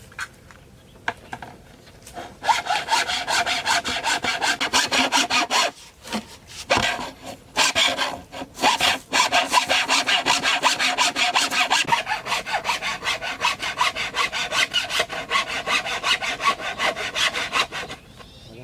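Hand saw cutting through bamboo in fast, even back-and-forth strokes. It starts a couple of seconds in, breaks off briefly twice, and stops shortly before the end.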